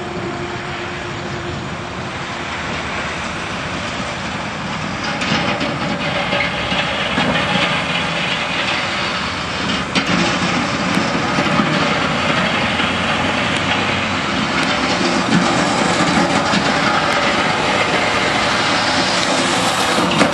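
Heavy diesel dump truck running as it drives slowly, giving a steady mix of engine and road noise.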